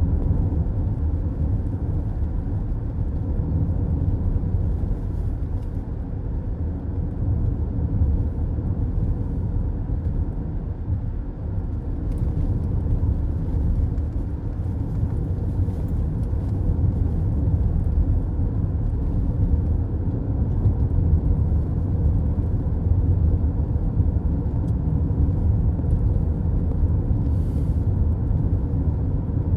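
Car cruising at highway speed, heard from inside the cabin: a steady low rumble of tyres on the road and engine.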